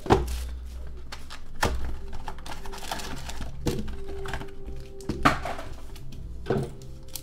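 A cardboard box of foil card packs being unwrapped and opened by hand: plastic shrink-wrap and cardboard rustling, with about five dull thumps as the box and packs are handled and set down on a table.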